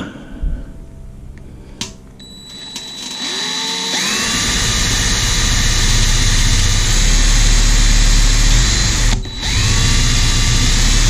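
Power drill spinning up with a rising whine a few seconds in, then running steadily as it bores a small pilot hole through a thermometer bezel on a Weber kettle grill's lid. It stops briefly near the end and spins up again.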